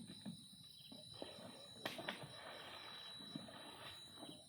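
Faint outdoor ambience: a steady high-pitched insect drone with scattered soft low sounds and one sharp click about two seconds in.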